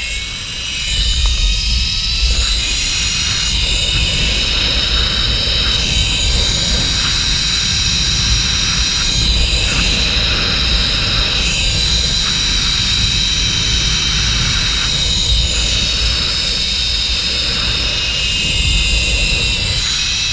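Zip line trolley wheels running along the steel cable at speed, giving a steady high whine, with wind rushing over the microphone as a low rumble underneath.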